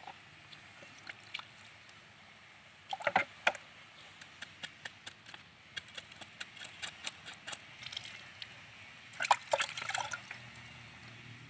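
Fish being cleaned: a run of short scrapes as a knife blade scrapes scales off a fish against a wooden log, and water splashing as the fish are rinsed in a bucket of sea water, once about three seconds in and again near the end.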